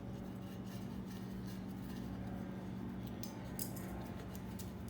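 Light metallic clicks and clinks of small engine parts and bolts being handled during reassembly, a few of them about three to four seconds in, over a steady low hum.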